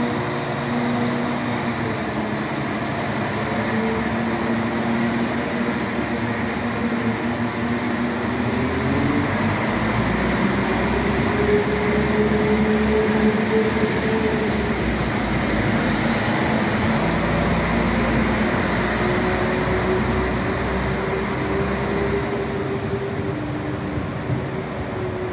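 Transport for Wales Class 197 diesel multiple unit pulling out of the platform: its underfloor diesel engines run up under power, the engine note rising in steps as it accelerates past and away, with a deep rumble joining about a third of the way in.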